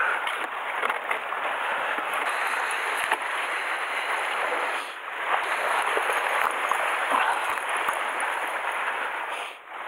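Sea water washing against shoreline rocks: a steady rushing hiss that eases briefly about five seconds in.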